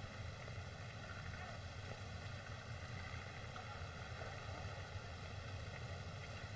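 Steady hiss and low hum of an old optical film soundtrack, with no distinct sound events.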